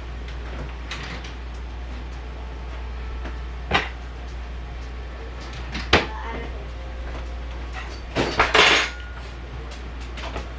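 Kitchen handling noises: a sharp knock about four seconds in, another about six seconds in, and a short burst of clattering near the end, over a steady low hum.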